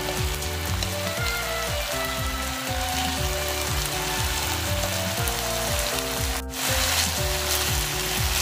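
Seasoned pork LA-style rib pieces sizzling steadily as they fry in a frying pan. The sizzle drops out for a moment past the middle. Background music with slow melodic notes plays under it.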